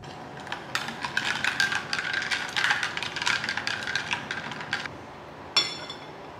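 Metal spoon stirring inside an enamelware cup, with fast clinking and scraping for about four seconds. Near the end comes a single ringing clink of metal on enamel.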